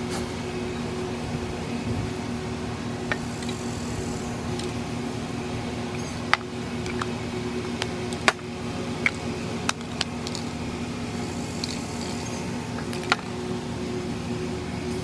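Steady mechanical hum that holds a few fixed pitches, with a scattering of sharp clicks and taps, most of them between about three and ten seconds in and one more near thirteen seconds.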